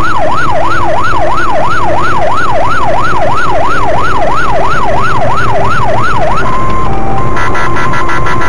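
Police car siren in a fast yelp, sweeping up and down about three times a second over steady road and engine noise. About six and a half seconds in, the sweep stops and changes to steady alternating tones, then a rapid run of short beeps near the end.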